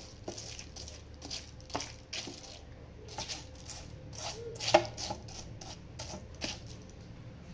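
Silicone pastry brush swished back and forth over butter paper lining a plastic tray, greasing it. It makes a run of quick, uneven brushing strokes, with one sharper knock about two thirds of the way through.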